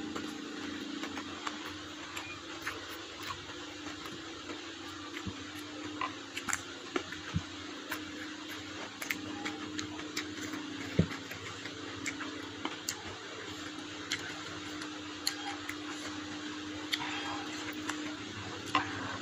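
Close-up eating sounds: chewing and lip-smacking of rice and stir-fried water spinach eaten by hand, with many short, sharp mouth clicks scattered through it. A steady low hum runs underneath.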